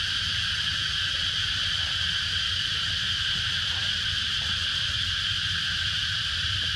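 Steady, unbroken high drone of insects in the trees, with a low rumble beneath it.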